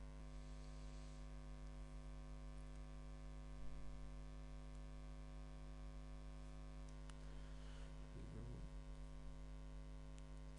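Steady electrical mains hum, a low buzz, with a couple of faint clicks.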